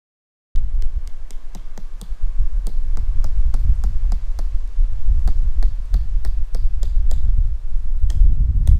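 Wind buffeting a GoPro microphone that has lost its windscreen: a loud, steady low rumble with many sharp clicks, several a second. It starts suddenly about half a second in.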